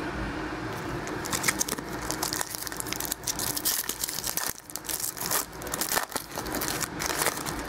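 Foil trading-card pack wrapper crinkling and being torn open by hand: a dense, irregular crackle.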